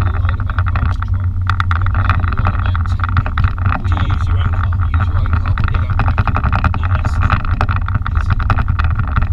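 Cabin noise inside a moving BMW M5: a steady low drone from the twin-turbo V8 engine and the tyres, with rapid short crackles over it.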